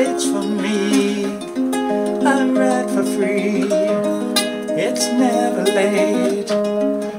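Ukulele played solo, picking out a melody with notes ringing one after another.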